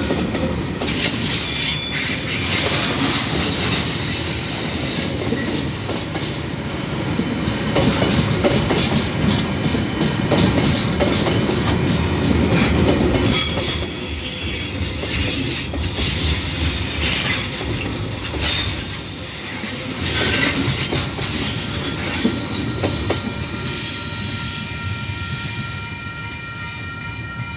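Container freight train's flat wagons rolling past on the rails, wheels squealing and clattering. The sound fades near the end as the last wagon goes by.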